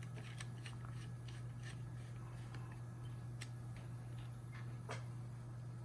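Faint, irregular light clicks of a small screwdriver driving tiny screws into a gas monitor's circuit board, over a steady low hum.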